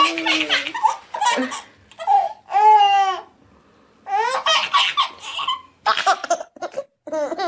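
A baby laughing hard in repeated high-pitched bursts of belly laughs and squeals, with a short pause a little past the middle; after a cut another baby laughs in quick bursts.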